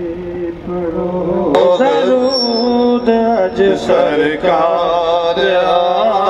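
A man singing the drawn-out, ornamented opening of a naat into a microphone, heard through a loudspeaker; the voice slides and wavers between held notes and grows louder about a second and a half in.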